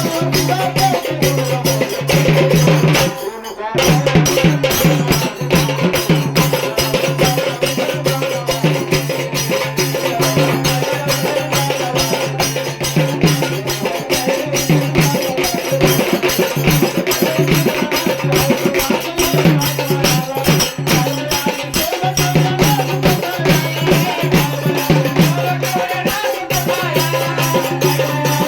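Marathi devotional folk music: a steady drone held underneath, with a shaker or rattle and other hand percussion keeping a dense, even rhythm. It breaks off briefly about three seconds in, then carries on.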